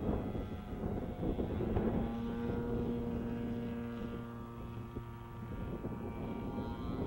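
Distant drone of a radio-controlled Yak 54 aerobatic plane's OS 1.60 FX two-stroke glow engine and propeller, muffled by a Bisson Pitts-style muffler, running at a steady pitch in flight. It dips in level about five seconds in and swells again near the end.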